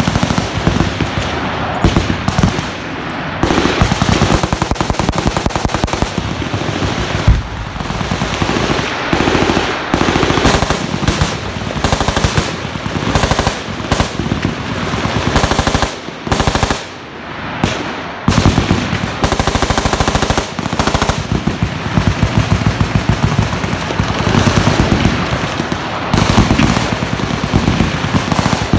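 Sustained automatic machine-gun fire downrange: long, dense strings of shots, tracer rounds included. The firing eases briefly about halfway through, then picks up again.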